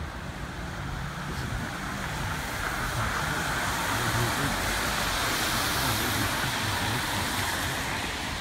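A van driving past on the street, its engine and tyre noise swelling to a peak about halfway through and then fading.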